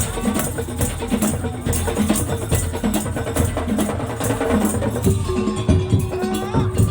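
Madurese tong-tong (daul) ensemble playing: dense, rhythmic beating of wooden slit drums and drums, with a steady held note joining about five seconds in.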